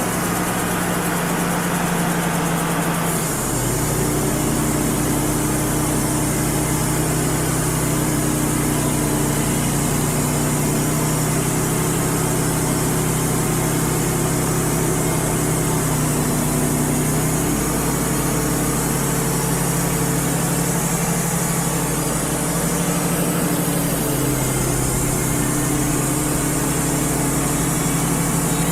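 Wood-Mizer LT35 portable band sawmill running steadily, its engine and band blade going without a break. The engine pitch drops about three seconds in, comes back up around the middle and dips again near the end, as it would under the load of the blade sawing through a red oak log.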